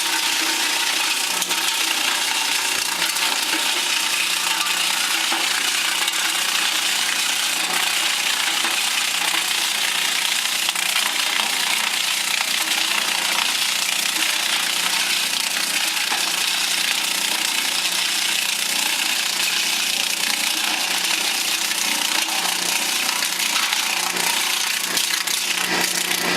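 Large wood lathe cutting: a steady, hissing, grinding sound of the tool shaving wood over a constant machine hum.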